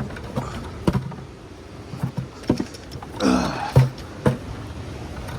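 Scattered knocks and scrapes of people clambering over rocks, with a short falling grunt from one of them a little over three seconds in.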